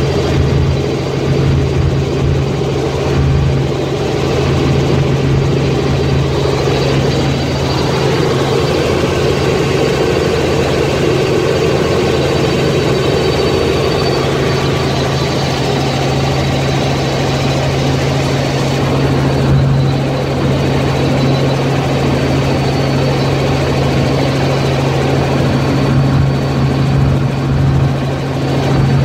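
Helicopter in flight heard from inside the cabin: a loud, steady drone of rotor and engine with a constant low hum.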